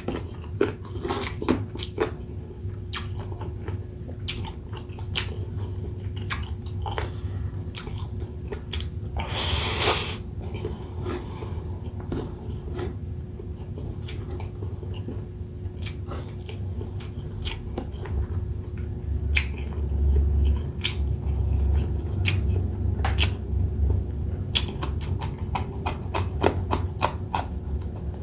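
Close-miked chewing and biting of a chicken inasal meal, with many sharp wet mouth clicks and a brief, louder noisy crunch about ten seconds in, over a steady low hum.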